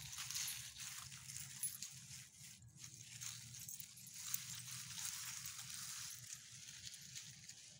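Dry fallen leaves crunching and rustling as small dogs walk and sniff through them, a steady patter of small crackles.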